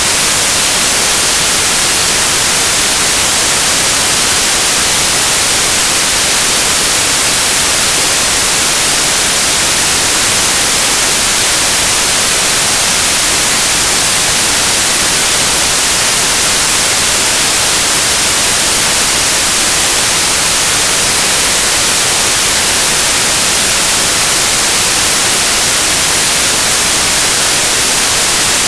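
Steady, loud white noise played as a burn-in signal for headphone drivers: an even, unbroken hiss, strongest in the highs.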